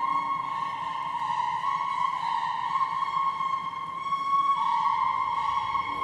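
Experimental electronic drone: one held high tone with overtones, its pitch shifting slightly a couple of times.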